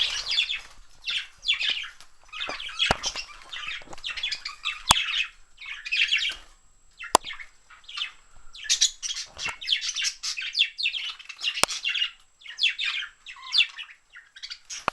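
Several pet budgerigars chattering and chirping loudly and continuously in a noisy flock racket, with a few sharp clicks mixed in.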